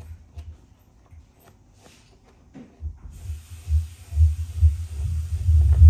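Irregular low thumps played through the JBL PartyBox Encore speaker as the wireless microphone is handled over it, growing louder toward the end. A steady hiss comes in about three seconds in as a knob on the speaker is worked.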